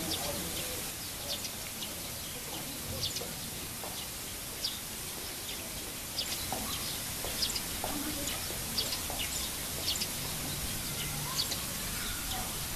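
Many short, high-pitched chirps, scattered irregularly, over a steady background hiss.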